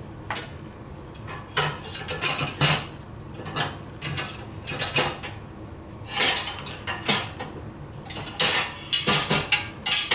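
Metal pots and pans clinking and clanking as they are handled and set down on a stovetop, a string of irregular knocks and rings.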